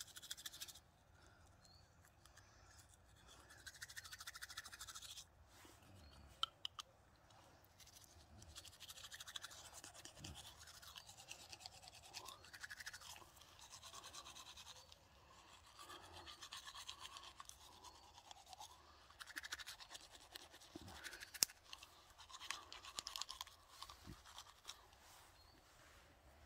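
Teeth being brushed with a toothbrush: faint scrubbing strokes in runs of a few seconds, with short pauses between them.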